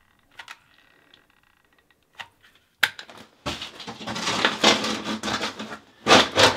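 A few faint clicks from a caulking gun laying sealant on the drain flange. About three seconds in, a sharp click, then a stretch of scraping and rubbing as a shower pan board is set down onto wet thin-set and pressed in by hand. A loud knock comes near the end.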